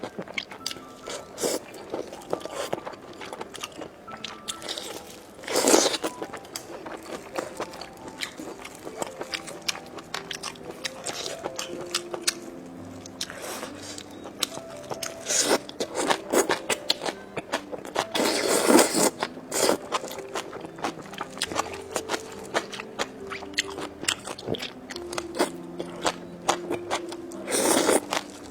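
Close-up crunching, biting and chewing of fried skewered food, with louder crunchy bites about 6, 16 and 19 seconds in, over soft background music.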